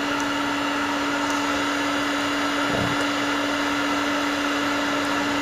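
Electric hot-air heat gun blowing steadily with an even whoosh and a constant hum, melting a solder-seal sleeve onto a broken wire.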